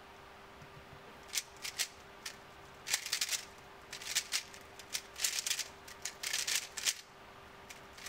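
YuXin 3x3 speedcube with soft springs being solved at speed: bursts of rapid plastic clicking and clattering as the layers are turned, separated by brief pauses.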